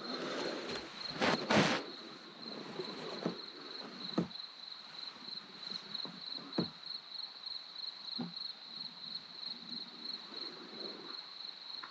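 Crickets chirping: a steady, high-pitched pulsing trill, with a few scattered knocks and a brief rustle of handling.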